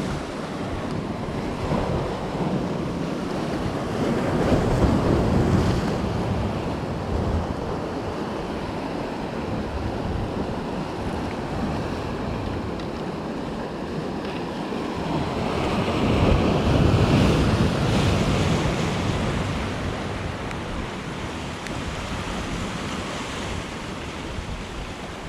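Sea surf washing in, with two bigger waves swelling up about four seconds in and again after about sixteen seconds, and wind rumbling on the microphone.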